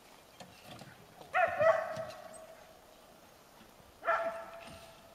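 A dog barking twice, two drawn-out barks about three seconds apart, each starting sharply and fading over most of a second.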